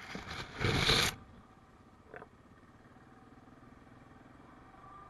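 Pine branches scraping and swishing across the ATV as it pushes through them, loudest just under a second in and stopping after about a second. The 2017 Yamaha Kodiak 700's engine then runs quietly underneath, with one short click about two seconds in.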